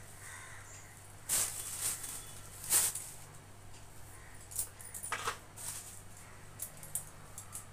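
Plastic bags rustling and crinkling as items are handled, in several short irregular bursts, the loudest about three seconds in, over a low steady hum.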